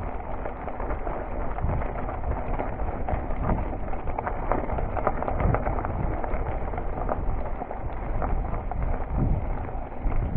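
A Cube Stereo full-suspension mountain bike riding over a gravel trail: a steady crunch of tyres on grit with frequent small knocks and rattles as the bike goes over stones.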